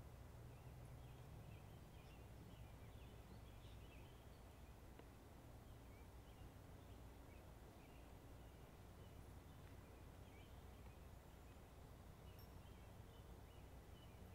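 Near silence: faint outdoor ambience with scattered faint, high bird chirps over a low steady hum.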